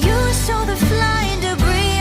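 Background pop song: a sung melody over a steady beat.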